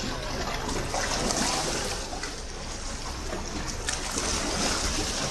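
Water washing and splashing, a hiss that swells twice, over a low rumble.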